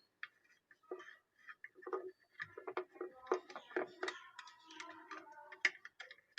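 Irregular small clicks, taps and knocks of hands handling plastic chainsaw parts while a fuel filter and fuel pipe are fitted into the fuel tank.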